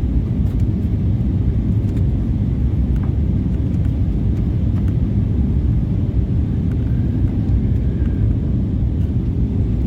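Steady low rumble of Airbus A320neo cabin noise on approach: engine and airflow noise heard from inside the passenger cabin.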